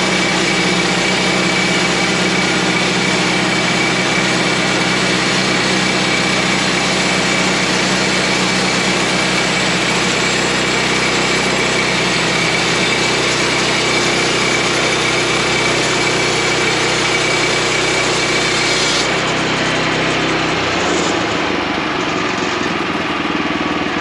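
Woodland Mills portable band sawmill's gas engine running hard while the band blade saws lengthwise through a log. About 19 seconds in, the high hiss of the cut stops suddenly as the blade clears the end of the log, and a second or two later the engine note drops.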